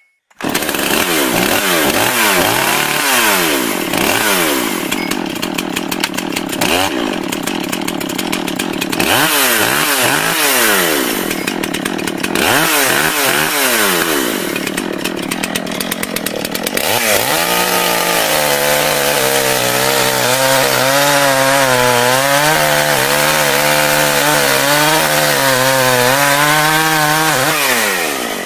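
Chainsaw revving up and down in repeated short blips, then held running at high speed with a slightly wavering pitch for the last ten seconds or so, as if cutting, before it stops just before the end.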